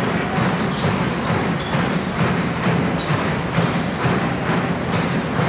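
Basketball game on a hardwood court: the ball bouncing and players' feet moving over steady crowd noise in a large hall, with short high squeaks here and there.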